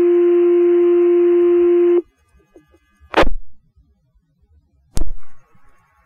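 Fire dispatch two-tone pager alert heard over the radio: the long second tone of the page, a steady low tone that cuts off sharply about two seconds in. Two short sharp radio clicks follow, about two seconds apart.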